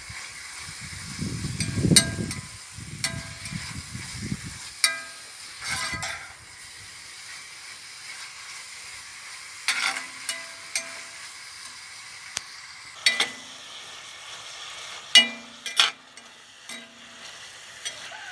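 Beef strips sizzling in hot oil in a wok, with a steady hiss. Through it come intermittent knocks and scrapes of a utensil stirring against the metal wok, a few of them ringing briefly.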